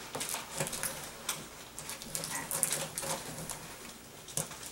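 Pocket knife slitting the packing tape along the top of a cardboard box: irregular scratching and scraping strokes of blade on tape and cardboard.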